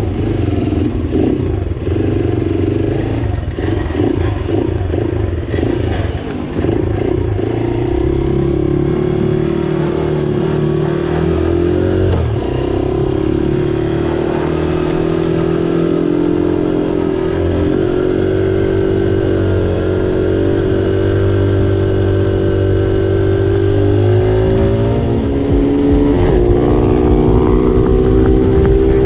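Several small racing motorcycles lapping a tight corner, their engine notes overlapping and rising and falling as they slow, lean through and accelerate out.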